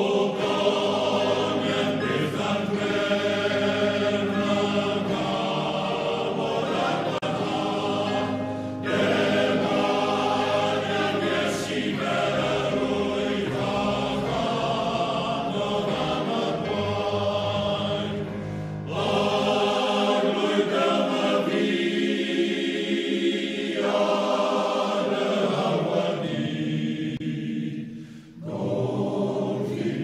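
Male voice choir singing in sustained phrases, with short breaths between phrases about three times.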